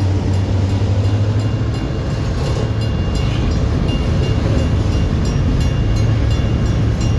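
Train passing close by: a steady heavy rumble with a low drone, and a regular light clicking about twice a second.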